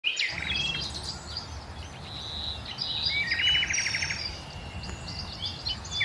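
A large flock of songbirds calling together: many overlapping chirps and whistles, with a fast rattling call about three seconds in, over a steady low rumble.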